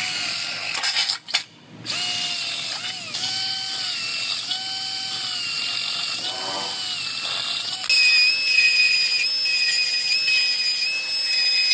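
Cordless drill boring into a new steel bracket, its motor whine dipping and picking back up as the bit loads. About eight seconds in, a louder, steadier whine starts: a narrow belt sander running on the part.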